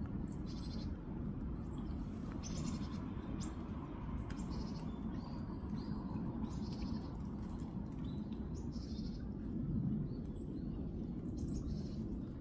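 Short, high bird calls repeating irregularly, roughly once a second, over a steady low background rumble.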